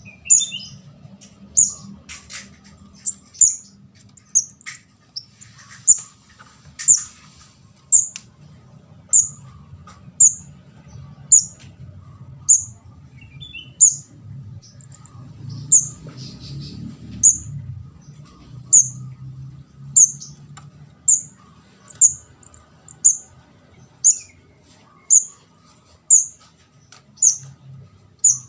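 Juvenile orange-headed thrush giving a thin, very high call over and over, about once a second, each call short and dipping slightly in pitch.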